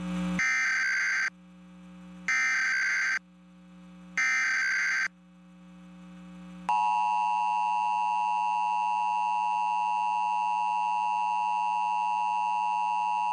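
Emergency Alert System header: three short bursts of screeching SAME digital data tones, each under a second and about two seconds apart. Then, about a third of the way in, the steady two-tone EAS attention signal begins and holds, announcing the nationwide test message.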